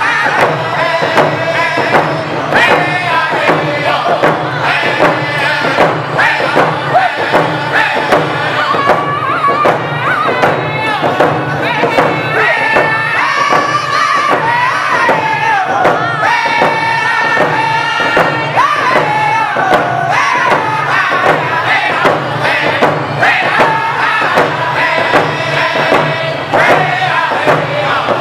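Round dance song: a group of men singing together in unison while striking hand-held hide frame drums with beaters in a steady beat.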